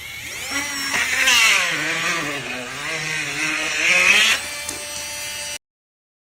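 A motor whining, its pitch wavering up and down. It cuts off suddenly about five and a half seconds in.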